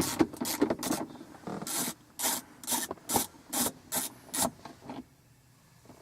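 Socket ratchet clicking in a run of short back-and-forth strokes, about two a second, as a 10 mm bolt is backed out; the strokes stop about five seconds in.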